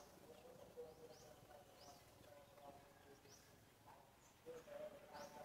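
Faint, quiet outdoor ambience with small birds chirping: short, sharp, high chirps repeating every half second or so.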